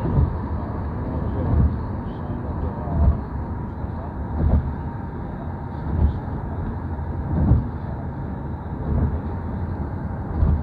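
Car cabin road noise at motorway speed: a steady tyre and engine rumble with a low thump about every second and a half.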